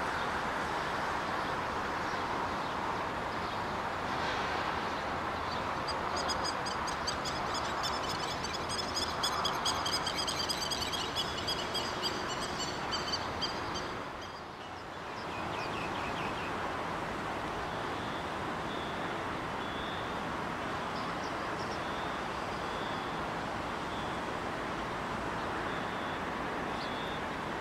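Steady jet-engine noise from a Boeing 777 taxiing at low thrust. A small bird chirps rapidly over it for several seconds in the middle.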